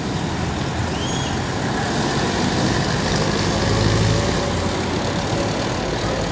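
Steady city traffic noise: a continuous low rumble with hiss across the range, swelling briefly about four seconds in, as of a heavy vehicle passing.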